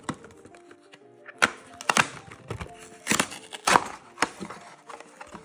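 Cardboard gift box being pulled and torn open by hand: about five loud, sharp rips of its taped flaps, over light background music.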